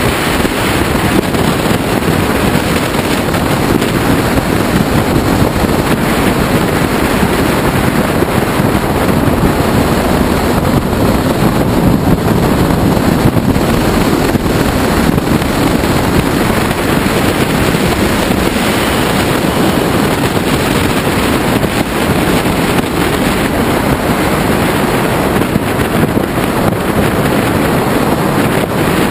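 Steady wind rush on a helmet camera's microphone while riding a Ducati Multistrada at road speed, with the motorcycle's engine running under it.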